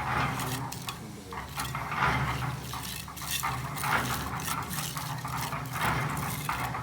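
Wet concrete being worked with metal tools: repeated wet scraping and sloshing strokes with sharp clinks, over a low steady hum.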